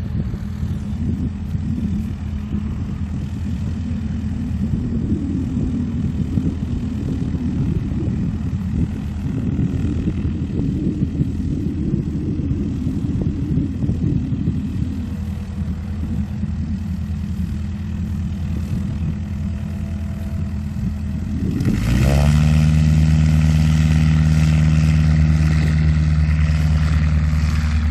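Light STOL bush plane's propeller engine running at low power with a steady hum. About 22 seconds in it surges to full throttle for a short-field takeoff, becoming a loud, steady pitched drone as the plane lifts off.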